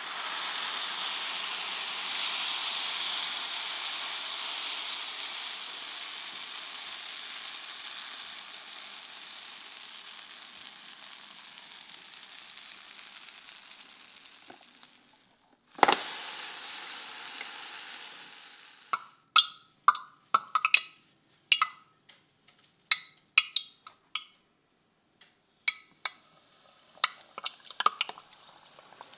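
Waffle batter sizzling on a hot waffle iron, a hiss that fades slowly over about fifteen seconds. It is followed by one sharp hit, then a run of separate sharp clicks and pops in the last ten seconds.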